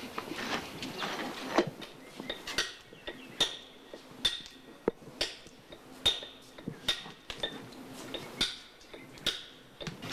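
Hammer blows on a metal chisel dressing stone slabs: sharp, ringing metallic strikes, steady at about one a second.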